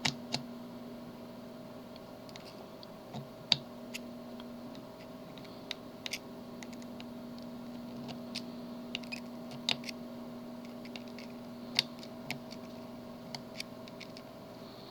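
Small sharp clicks and ticks at irregular intervals as a pick probes the pins of a tubular lock under tension, over a steady faint hum.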